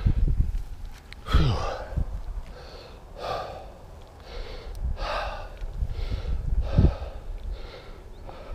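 A cyclist breathing hard, out of breath from the climb, with a heavy breath in or out about every second. A few low bumps on the microphone come in between.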